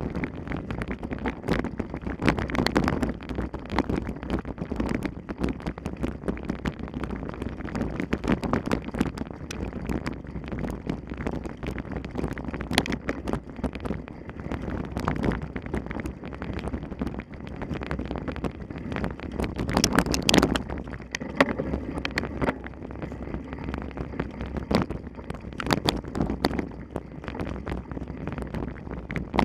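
Mountain bike being ridden over rough ground: wind buffeting the microphone over a steady tyre rumble, with frequent small rattles and knocks throughout.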